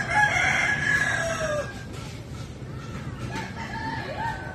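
A rooster crowing once, a long call of about a second and a half that drops in pitch at the end. A few shorter calls follow later on.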